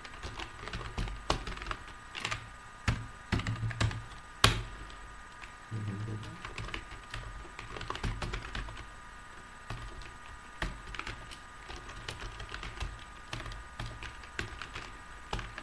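Computer keyboard typing: irregular runs of keystrokes, one louder click about four and a half seconds in, over a faint steady hum.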